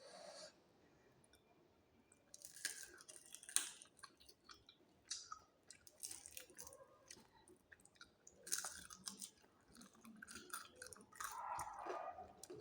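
Close-up mouth sounds of someone eating crispy fried chicken: chewing and crunching in irregular bursts of crackly clicks, with pauses between mouthfuls.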